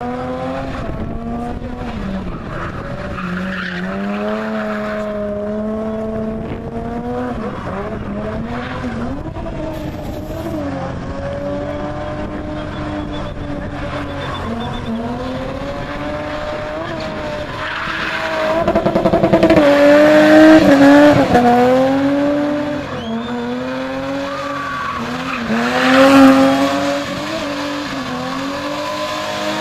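BMW E30 spinning in tight circles, its engine held at high revs that rise and dip continually while the rear tyres spin and squeal on the tarmac. It gets louder in a surge about two-thirds of the way through and again near the end.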